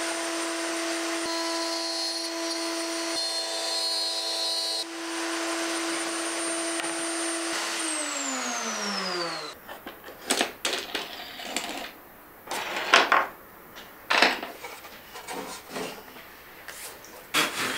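Table-mounted router running at a steady high-pitched whine with dust extraction on, winding down in pitch and stopping about nine seconds in. Then come short knocks and clatter as wooden workpieces are handled on the table.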